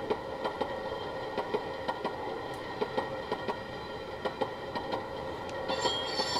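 Soundtraxx Tsunami sound car decoder in a model boxcar playing freight car rolling sounds through its small speaker: a steady generator hum with wheel clicks over rail joints two or three times a second, and a brief high flange squeal near the end.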